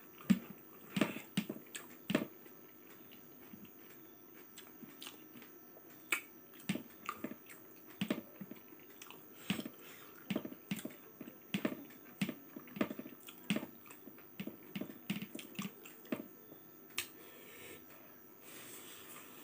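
Close-miked eating by hand: a person chewing with wet lip smacks and mouth clicks coming irregularly, several a second, mixed with fingers squishing rice on the plate.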